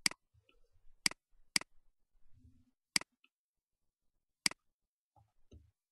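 Computer mouse clicks: five sharp single clicks, unevenly spaced, two of them about half a second apart.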